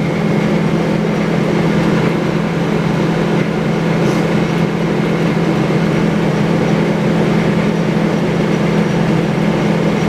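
Sawmill machinery running steadily: a low, constant drone with an even hiss over it.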